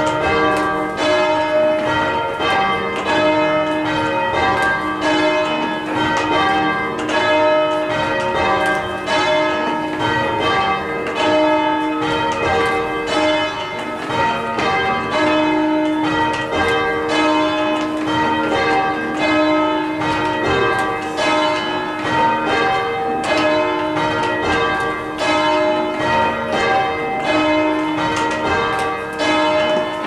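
Carlisle Cathedral's ring of church bells rung full-circle, the bells striking one after another in a steady, unbroken sequence, heard from the ringing room below them.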